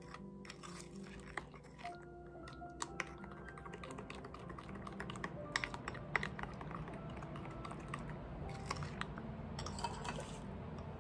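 Metal spoon stirring a thick, sticky honey and molasses mixture in a glass bowl, with many small clicks and scrapes of the spoon against the glass, over faint background music.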